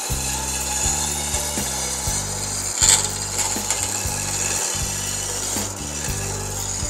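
Electric wood lathe running while a hand chisel scrapes along a spinning mango-wood blank, shaving it smooth and round. There is one brief louder scrape about three seconds in.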